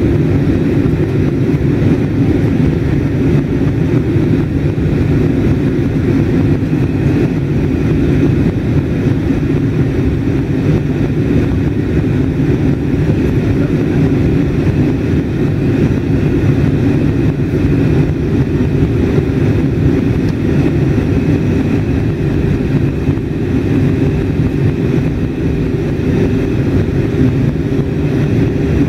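Steady cabin noise of an Airbus A320 in flight, heard inside the cabin at a window seat over the wing: engines and airflow making a loud, even low rumble with a faint hum above it.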